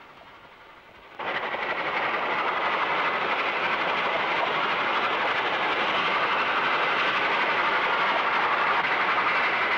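Passenger train running along the track at speed: a steady, even rattling noise of the moving carriages that cuts in suddenly about a second in.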